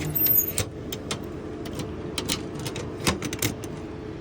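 Irregular sharp metallic clicks and clinks of cut keys being handled and tried, over a steady low hum.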